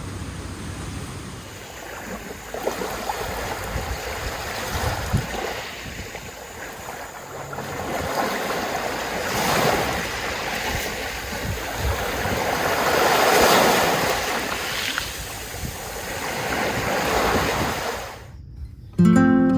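Sea waves washing onto the beach with strong wind on the microphone, a steady rush that swells every few seconds. Acoustic guitar music comes in at the very end.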